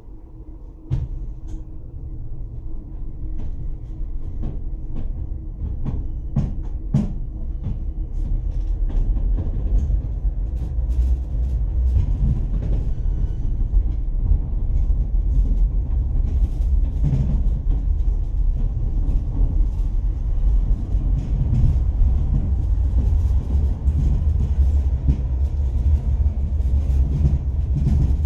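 Tatra T3SU tram heard from inside the passenger car as it gets under way: a low rumble of wheels and running gear that rises sharply about a second in and keeps growing as it gathers speed, with scattered clicks and knocks.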